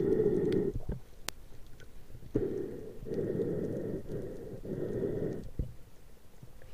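Muffled underwater water noise heard through a camera housing, coming in several rushing stretches as the diver moves, with one sharp click a little over a second in.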